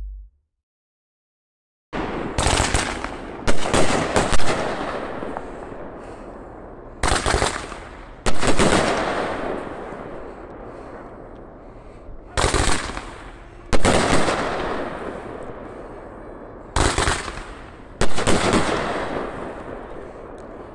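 Shogun Neon Skies 25-shot firework cake firing, starting about two seconds in. Groups of sharp bangs come every four to five seconds as shots lift and break overhead, and each group trails off in a long fading crackle from the crackling lace stars.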